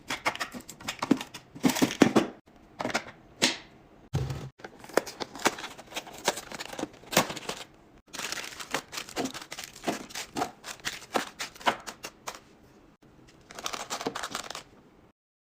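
Plastic packaging crinkling and rustling, with many quick clicks and taps of containers and lids being handled while restocking a fridge. A brief low thump comes about four seconds in, and the sound cuts off abruptly just before the end.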